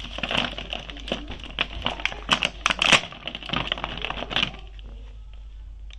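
Thin clear plastic blister tray crackling and clicking under a hand as an action figure is worked out of it; the crackling stops about four and a half seconds in.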